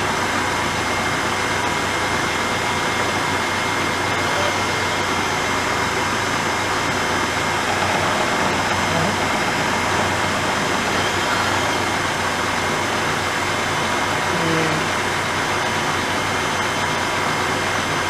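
Milling machine running steadily, its motor and spindle turning an end mill in low gear, with a constant hum and no change in pitch.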